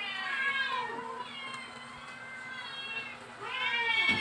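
Domestic cat meowing repeatedly: about four drawn-out meows, the last one the loudest, near the end.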